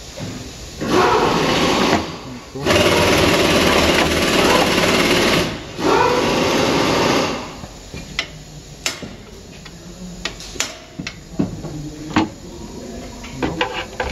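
Pneumatic hand tool running in three bursts of a second to three seconds on the bolts of a front wheel hub bearing assembly, followed by scattered light metal clicks and taps from the tools.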